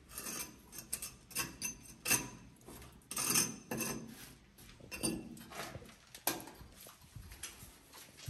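Hand trowel scraping and knocking against the base of a concrete wall, in short, irregular strokes with small clinks.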